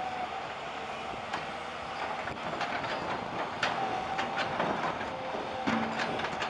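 New Holland E215 crawler excavator running as it works its way off a lowbed trailer: its steel tracks clank and squeal against the trailer deck over the steady sound of the engine and hydraulics. Several sharp metallic clanks stand out, and a whining tone comes and goes.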